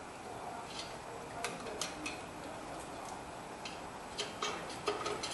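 Screwdriver turning the rear parking-brake shoe adjuster through the backing plate, giving a run of light, irregular clicks as the adjuster is tightened to put drag on the shoes.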